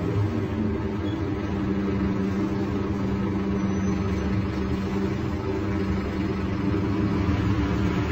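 Scania DC9 five-cylinder diesel engine of a Scania K310 articulated city bus running steadily, heard from inside the bus, growing a little louder near the end.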